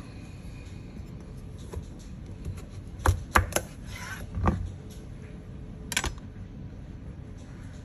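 Chef's knife cutting a delicata squash lengthwise on a plastic cutting board. There are a few sharp knocks and cracks about three seconds in as the blade breaks through the hard rind, then a short crunching scrape, and one more knock about six seconds in.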